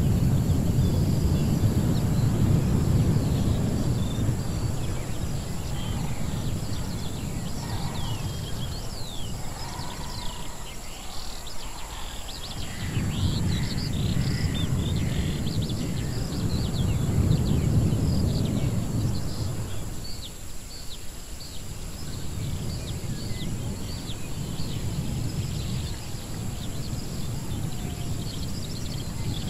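Edited jungle-ruins ambience: a deep rumbling noise that swells and fades in long waves, dropping away twice, under many birds chirping in short calls and a steady high hiss.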